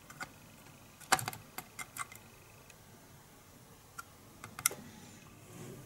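Scattered light clicks and taps of plastic model-kit parts being handled and pressed into place, with the loudest click about a second in and a few more later.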